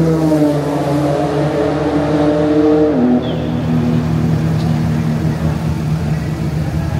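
Modified Nissan R35 GT-R's twin-turbo 3.8-litre V6 (VR38DETT) running at idle, a steady hum whose pitch steps down a little about three seconds in.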